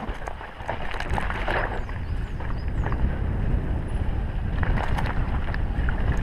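Sunn Charger S1 mountain bike descending a dirt trail at speed, heard from the rider's helmet camera: wind rushing over the microphone, tyres rumbling on the ground, and knocks and rattles from the bike over bumps.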